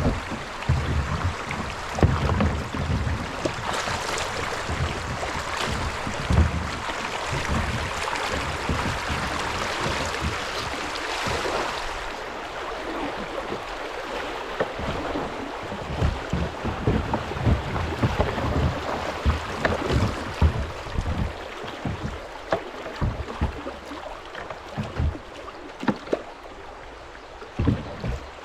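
A kayak on a shallow creek: water rushing and splashing around the boat, with frequent short low thumps from the paddle and the hull. The rush is heavier for the first dozen seconds or so and then eases, leaving the thumps more distinct.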